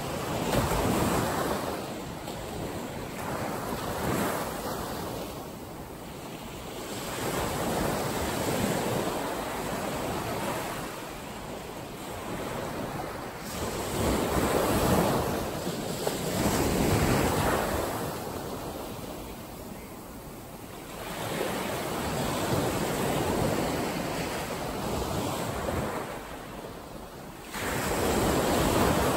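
Small ocean waves breaking and washing up a sandy beach. The surf swells and falls away every few seconds.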